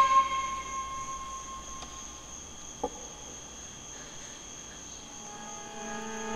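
Horror-film sound design: a steady high-pitched ringing tone over a quiet background, with one short click about three seconds in. Low sustained score tones swell in near the end.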